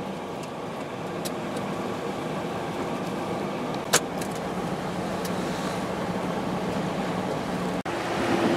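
Car ferry's engine running with a steady low drone heard from on deck. A single sharp click about four seconds in is the loudest moment, and the sound drops out briefly near the end.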